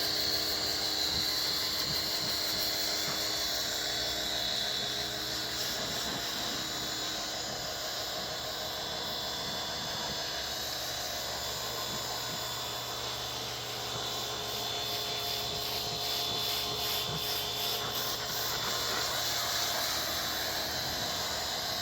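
Electric Wood-Mizer LX250 band sawmill running steadily under its 15 horsepower three-phase motor, the band blade cutting through walnut and oak logs, with a constant high whine over a low hum.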